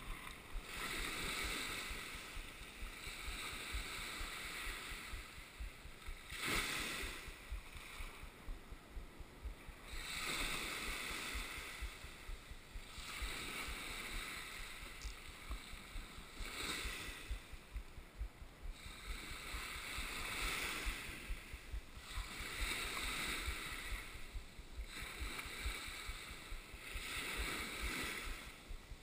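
Small waves breaking and washing up a sandy beach, the surf hiss swelling and fading every three to four seconds.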